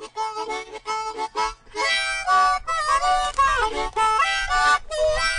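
Instrumental music without vocals: a melody of short, quickly changing notes.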